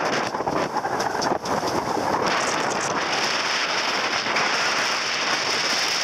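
Wind buffeting the microphone over the rush and splash of a sailing yacht's hull driving through choppy water. About two seconds in the crackling gives way to a steadier hiss.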